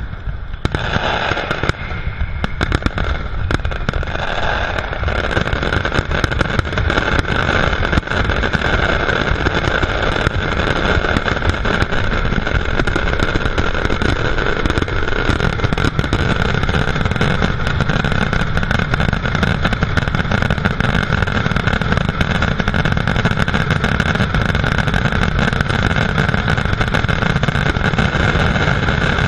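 Fireworks finale: a dense, unbroken barrage of bangs and crackling that merge into one loud, steady roll.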